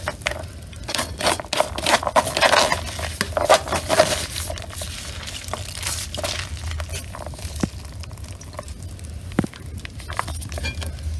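Plastic-gloved hands squeezing and crushing pomegranate seeds in a plastic colander to press out the juice: irregular crinkling of the glove and crushing of the wet seeds, busiest in the first half.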